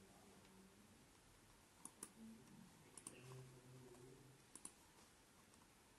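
Faint computer mouse clicks over quiet room tone: three quick double clicks, about two, three and four and a half seconds in.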